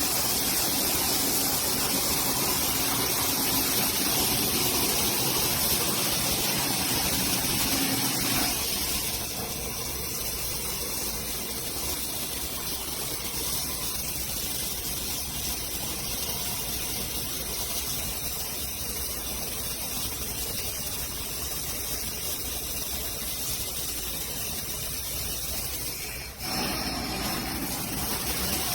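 Water spraying steadily from a wall-mounted rainfall shower system. The hiss drops and changes in tone about eight seconds in, then comes back up sharply near the end.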